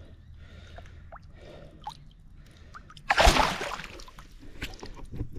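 Water sloshing and dripping at the water's edge, with a loud splash about three seconds in that fades over about a second.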